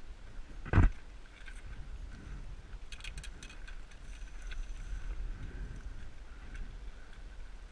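Low rumble of wind on the microphone, with one loud thump about a second in and a brief cluster of sharp clicks around three seconds in.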